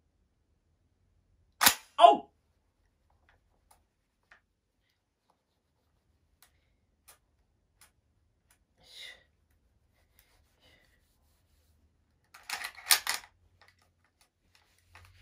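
Shotgun being handled and wiped with a cloth: two sharp clicks about two seconds in, a faint rub around nine seconds, and a quick cluster of sharp clicks near the end.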